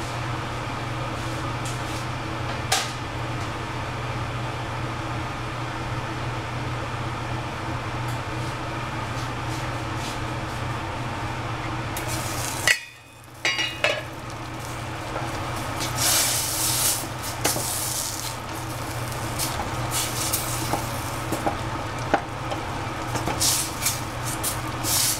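A steady hum, then about halfway through a metal clank as the stainless steel lid comes off the saucepan. After that a spatula stirs and scrapes tomato and egg in the pan in short repeated strokes, with sizzling.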